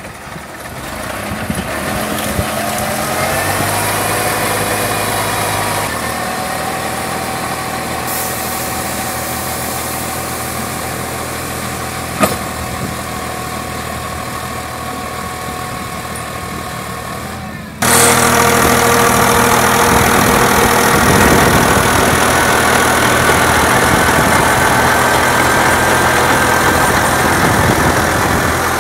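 Farm tractor's diesel engine running steadily under load, driving a rotary tiller and a screw-type flat-ridge former through soil. The engine speeds up over the first few seconds, then holds steady. About two-thirds of the way through, the sound abruptly becomes louder and closer.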